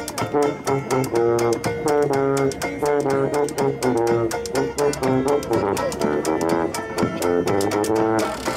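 Instrumental band music: held melody notes over a moving bass line, with a steady clicking or strummed rhythm.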